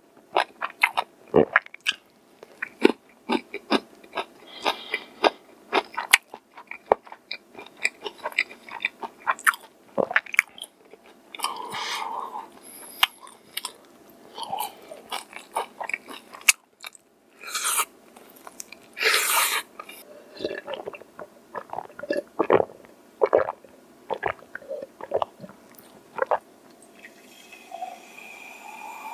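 Close-up eating of crispy fried chicken: a rapid run of sharp crunches and chewing as the crisp batter coating is bitten and chewed. Near the end, cola is poured from a plastic bottle into a glass mug, fizzing, with a rising pitch as the mug fills.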